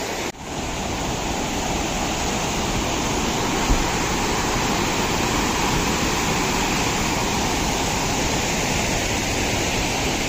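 Steady rush of a fast mountain stream pouring as white water over boulders and rocky ledges. The sound drops out for a moment just after the start.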